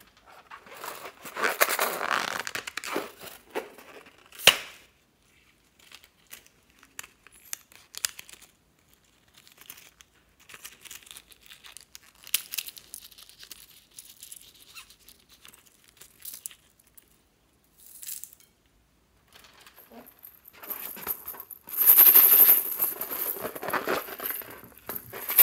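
Hands handling and cutting rubber balloons over a bowl of beaded slime: irregular rubbery rubbing and crinkling, with scattered small clicks and one sharp snap about four and a half seconds in. The rubbing comes in two longer spells, near the start and near the end.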